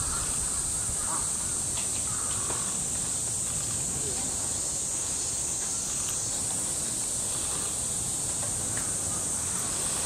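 Crows cawing a few times near the start, faint, over a steady high-pitched hiss.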